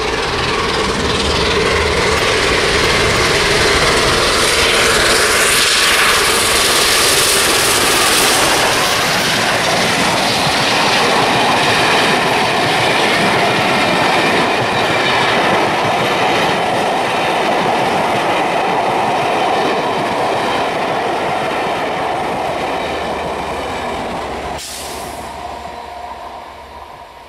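A train of Pullman coaches passing close by at speed: a loud, steady rush of wheels rumbling and clattering over the rails. Near the end the sound drops suddenly and then fades as the train is heard further off.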